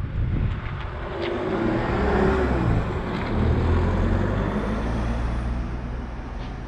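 A Peugeot MPV driving past close by: its engine hum and tyre noise swell over the first couple of seconds, then fade as it moves away.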